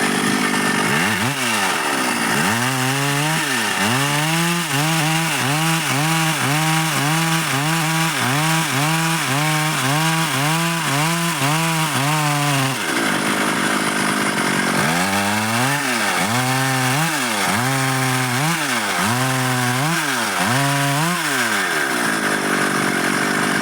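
Stihl MS 382 two-stroke chainsaw running hard while cutting dry wood. In two long stretches a lower tone under the steady high whine rises and falls over and over, a little under twice a second.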